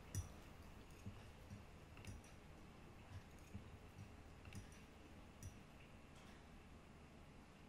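Near silence: quiet room tone with a handful of faint, irregular small clicks.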